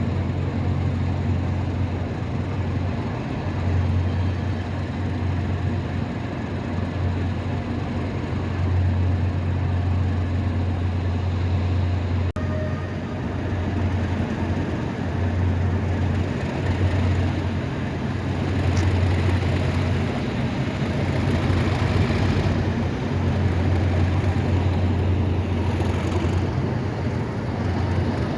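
Class 37 diesel locomotive's English Electric V12 engine running steadily, with a strong low hum.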